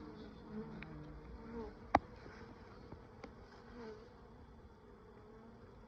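Honeybees from a freshly opened package buzzing, a steady hum with a wavering pitch. A sharp click about two seconds in, and a fainter one a second later.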